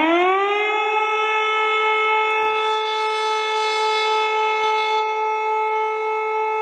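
Emergency alert siren tone that sweeps up in pitch over the first second, then holds one loud, steady note.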